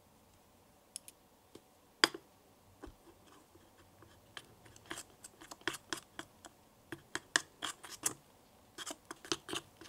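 Tiny spatula stirring a thick creamy mixture in a small glass bowl: a run of short scraping clicks and wet ticks against the glass, after a single sharp clink about two seconds in.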